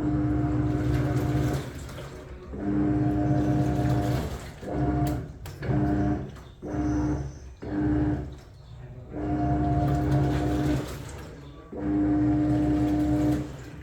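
Hisense iBubble 14 kg top-loader washing: the motor hums as it turns the pulsator in repeated bursts, some a second or more, some short, with pauses between, over sloshing water. The machine is agitating its load, now that the raised drain hose keeps the water in.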